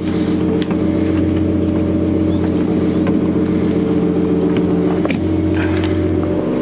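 2021 Ford Raptor pickup's engine idling steadily while it feeds the truck's Pro Power Onboard outlet, with a few light clicks as a plug is handled at the bed socket. The engine note dips briefly about five seconds in.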